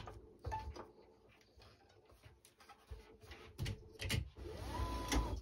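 Quiet handling of racket string on a stringing machine as the string is pulled through the frame: a few light clicks and knocks, then a brief squeak near the end.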